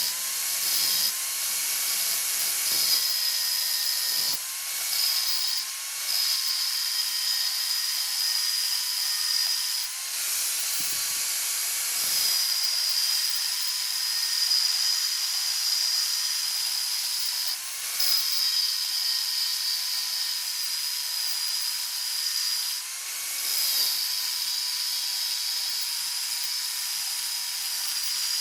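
Electric power tool running continuously with a high whine over a hiss, its pitch wavering briefly every few seconds.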